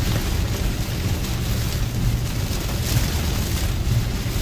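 Heavy rain falling steadily on a moving car's roof and windshield, heard from inside the cabin, over a deep, continuous rumble of the car on the wet road.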